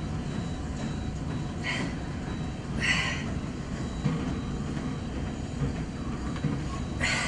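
Cable machine worked through bicep curls: a steady low rumble with a brief sharp rattle of the cable and weight stack about two seconds in, again a second later, and near the end.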